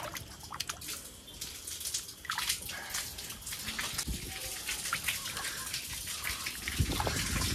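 Rainwater pooled on a flat roof splashing and dripping as bare feet wade through it, with many small scattered splashes. The sloshing grows louder near the end. The water stands because the roof drain is choked with fallen leaves.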